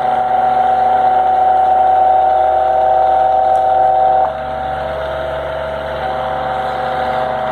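Wall-mounted fan running with a loud, steady vibrating hum, the mounting on a hollow-block wall making the noise louder. About four seconds in, the hum drops to a quieter level.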